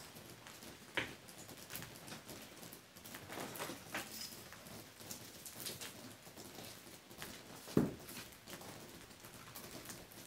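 Small trowel scraping and tapping against stone as lime mortar is pressed into the joints of a stone wall: soft, irregular scrapes, with two sharper knocks, one about a second in and one about three-quarters of the way through.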